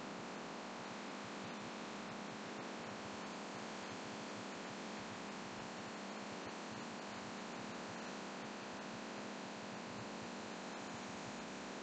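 Laminar flow hood's blower running steadily, a constant airflow hiss as it pushes air through its filter across the work surface, with faint scattered ticks.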